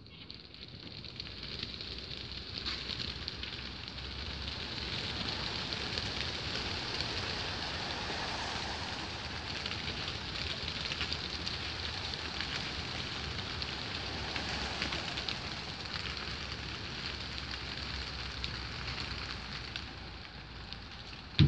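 A large flock of racing pigeons taking off from the crates of a transport truck, hundreds of wings making a dense, steady flutter that builds over the first two seconds. A sharp knock sounds at the very end.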